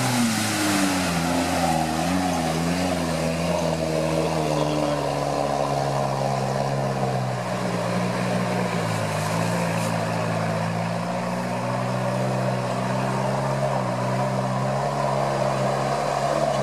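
Off-road 4x4's engine running under load and revving up and down as it ploughs through deep swamp water, with water and mud splashing.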